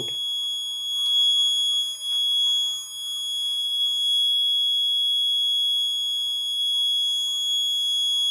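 Piezo alarm buzzer on an Arduino accident-detection board sounding one continuous, steady high-pitched tone: the alert for a detected right-side accident.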